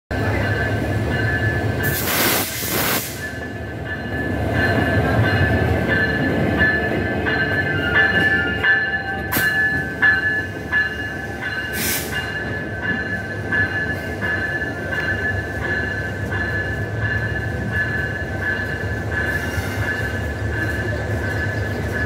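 Locomotive bell of a Hyundai Rotem 3000 series locomotive ringing in steady repeated strokes while the locomotive shunts, over the low, steady running of its engine. A few short bursts of noise cut in, the loudest about two seconds in.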